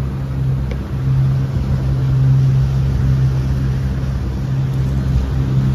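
Center-console boat's outboard engines running steadily underway, a low drone over the rush of water along the hull.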